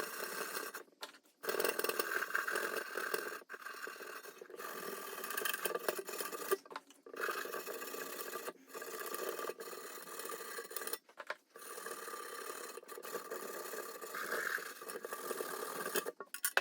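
Copper mesh scrubber rubbing over the chrome-plated surface of a Simplex copper kettle: a raspy scrubbing that comes in stretches of one to a few seconds, broken by short silent gaps.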